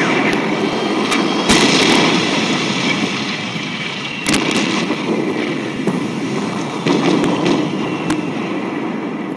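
Scuba diver's exhaled bubbles rumbling and gurgling past an underwater camera, swelling in a breathing rhythm about every three seconds, with scattered sharp clicks.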